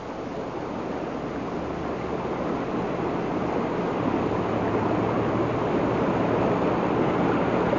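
A steady rushing noise that slowly swells in level, with a faint low hum coming in about halfway through.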